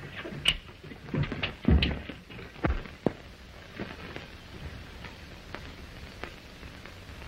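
Irregular knocks and thumps, several in the first three seconds, then a few faint clicks over the steady hiss of an old film soundtrack.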